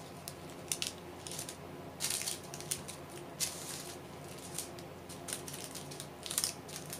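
Small plastic baggies of resin diamond-painting drills being picked up and set down, crinkling and rattling in short, irregular bursts.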